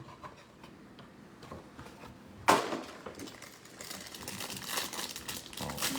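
Card packaging being handled: a sudden loud tear about halfway through, then steady crinkling and rustling as a trading-card hanger box is opened.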